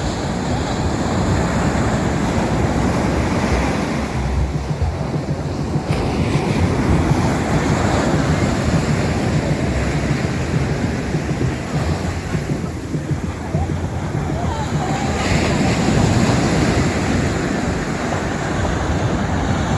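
Ocean surf washing and breaking on a beach, a steady rushing wash that swells and eases every few seconds, with wind buffeting the microphone.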